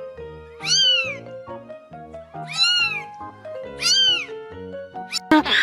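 Domestic cat meowing: three long, drawn-out meows about a second or two apart, over background music. A louder, different sound begins just before the end.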